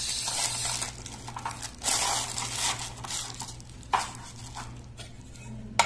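Plastic wrapping crinkling and rustling as it is handled, with two sharp clicks about four seconds in and near the end, from the hexagonal metal watch tin being handled.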